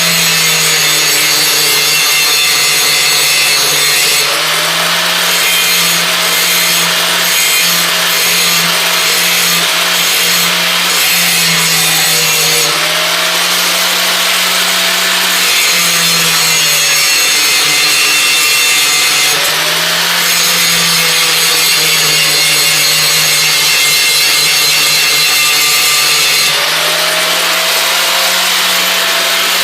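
Electric grinder grinding down the edge of a steel brush hog blade. It runs loud and continuous, and the motor's pitch drops and recovers every few seconds as it is pressed on and eased off with each pass, taking off a fair amount of metal to bring the edge back down.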